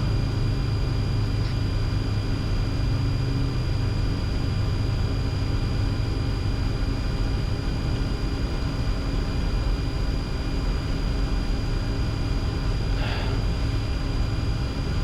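Steady cockpit noise of a Bombardier Challenger 604 in its initial climb: an even rush of airflow and engine drone, with a constant high whine and low hums running through it.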